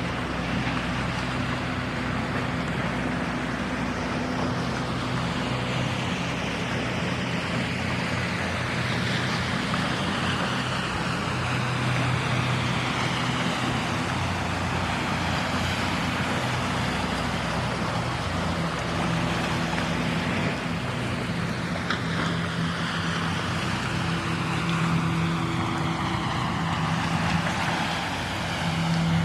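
A motor running steadily: a constant low hum under a rushing noise, swelling slightly near the end.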